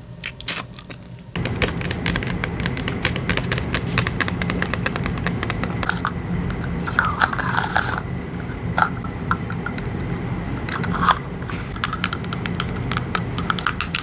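Plastic packaging crinkling and crackling close to the microphone: a dense run of small crackles with a few louder crunches.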